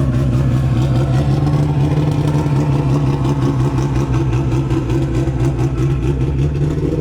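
Car engine running steadily at a constant speed, its exhaust note holding an even pitch.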